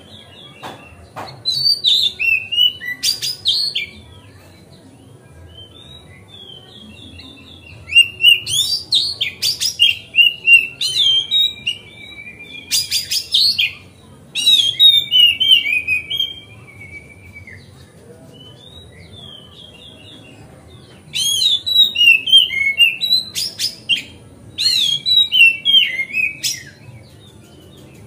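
Oriental magpie-robin (kacer) singing loudly in three bouts of rapid, varied whistles mixed with sharp clicking notes. One short bout comes about two seconds in, a long one runs from about eight to sixteen seconds, and another comes near the end, with short pauses between them.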